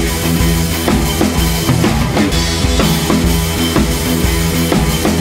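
Background music with a steady drum-kit beat and bass.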